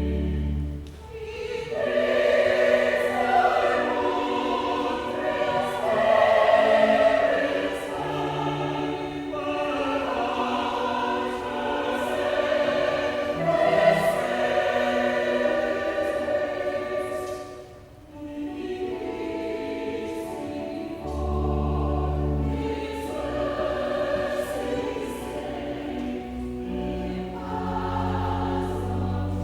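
A church choir singing an offertory anthem with accompaniment that holds sustained low bass notes, the phrases breaking off briefly twice.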